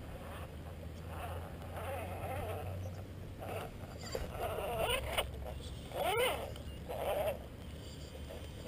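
Axial Wraith radio-controlled rock crawler's electric motor and drivetrain whining in several short bursts that rise and fall in pitch as the throttle is worked while it climbs the rock. The loudest burst comes about six seconds in.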